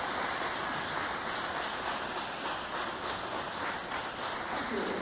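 Steady crowd noise from a large audience in a gymnasium, an even wash of sound with no music.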